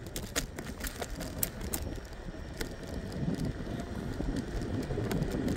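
Riding a scooter at night: a steady low rumble of wind on the microphone and road noise, with a few light clicks and rattles. The rumble grows gradually louder toward the end.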